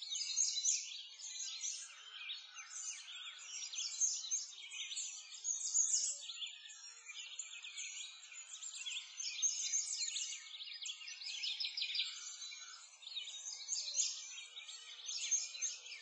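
A dense chorus of many small birds chirping and twittering at once, a continuous high-pitched tangle of quick calls with nothing deep beneath it.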